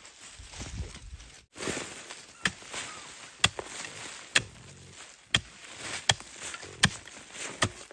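Soft rustling of dry bamboo leaves and soil, then a digging hoe chopping into earth around a bamboo shoot, about one sharp strike a second, seven times.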